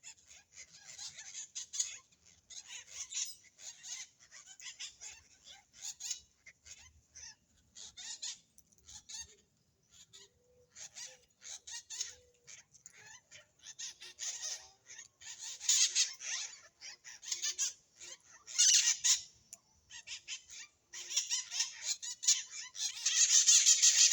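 Birds calling in many short, rapid chirps, growing louder and denser over the last few seconds.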